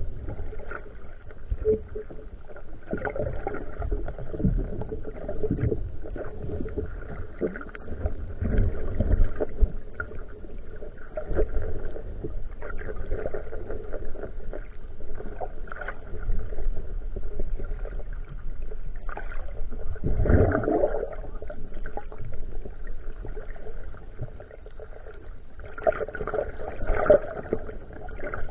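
Muffled underwater sound picked up by a camera in a waterproof housing: water moving against the housing, with irregular low thumps and swells.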